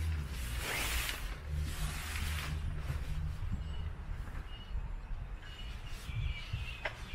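Tent fabric of a pop-up hub tent swishing and rustling twice as a loose panel is pulled and let fall, followed by short high bird chirps. A steady low rumble sits underneath.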